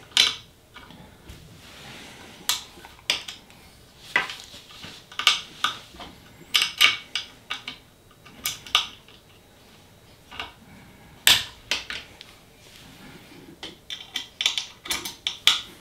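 Small steel hex key clicking and scraping against screw heads and the aluminium frame as the Y-axis belt-tensioner screws on an Ender 3 Pro 3D printer are loosened: scattered sharp metallic clicks, some in quick clusters, the loudest about eleven seconds in and near the end.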